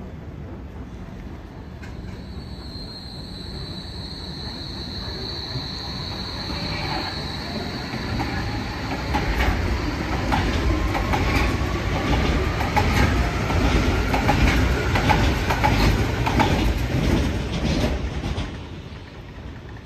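Hamburg U-Bahn DT5 trains accelerating past. A high steady squeal for the first several seconds gives way to an electric motor whine that rises in pitch. Heavy rumble and wheels clicking over rail joints grow loud about nine seconds in and fall away near the end.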